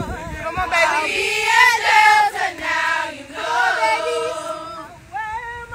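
A group of women singing together a cappella, holding long notes with vibrato.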